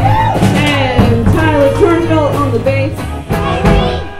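Live band playing a rock and roll number: a voice singing over upright bass and drums.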